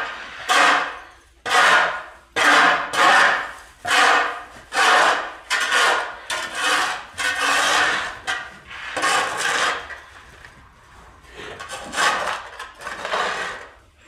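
Iron shovel scraping and chopping into hard-packed, stone-like manure bedding, in repeated short strokes about one to two a second, with a brief pause about ten seconds in.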